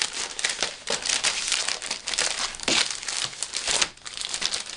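Clear plastic packaging crinkling and rustling in a run of quick crackles as booklets are pulled out of it and handled, with a brief lull just before the end.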